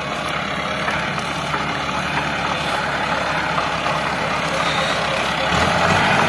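Massey Ferguson 385 tractor's four-cylinder diesel engine running steadily under load while it drives a rotavator tilling the field. It grows louder as the tractor comes closer, with a jump in the low rumble about five and a half seconds in.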